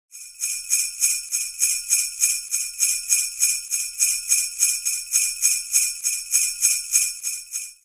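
Sleigh bells shaken in a steady rhythm, about three to four shakes a second.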